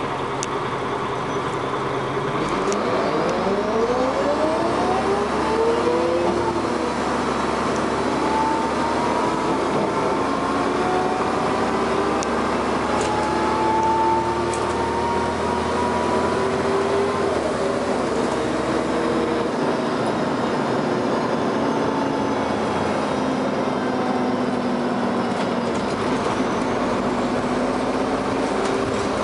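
Dennis Arrow double-decker bus idling, then pulling away: the engine revs up with rising whines, and pitch drops and climbs again as the ZF automatic gearbox changes up, settling to a steadier, lower note in the second half.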